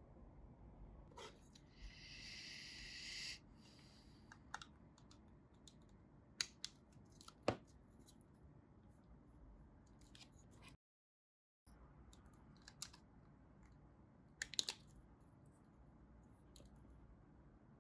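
Faint handling sounds: scattered light clicks and taps, with one brief rasping hiss about two seconds in.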